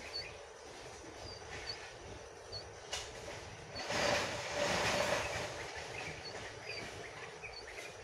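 Small birds making short, high chirps, repeating about once a second. A louder rushing noise with a low tone swells about halfway through and fades over a second or so.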